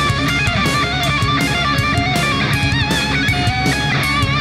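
Background music: a wavering lead melody over a steady beat.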